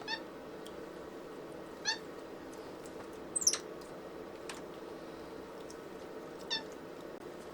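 White-faced capuchin monkey giving short, high, squeaky chirps: three brief calls a couple of seconds apart, and one higher squeal that falls in pitch about three and a half seconds in, over a faint steady hum.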